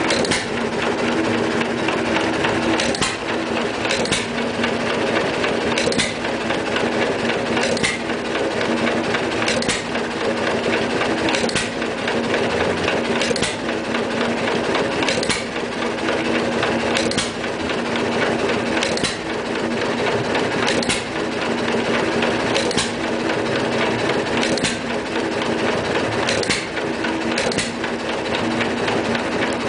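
John Deere 1-1/2 hp Model E hit-and-miss stationary engine running on its governor. It fires with a sharp bang about every two seconds and coasts on its flywheels between fires, with a steady mechanical clatter.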